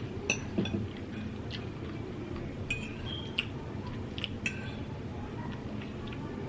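Cutlery clinking and clicking against a plate or bowl now and then, about a dozen light strikes, over a steady low background hum.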